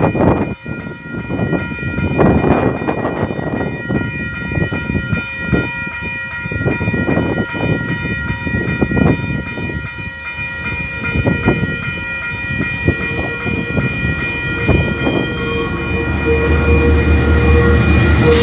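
Level crossing warning bells ringing steadily while the red lights flash. In the last few seconds a KiwiRail DL-class diesel locomotive rumbles in, its engine getting louder as it reaches the crossing.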